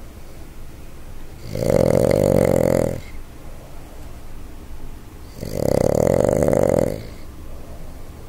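Boston Terrier snoring: two loud snores about four seconds apart, each lasting about a second and a half, much quieter in between.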